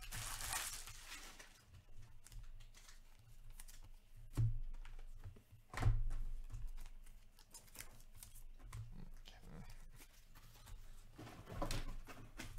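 Trading cards being handled and stacked on a table: a papery rustle at the start, two sharp taps about a second and a half apart in the middle, and more rustling of card stacks near the end.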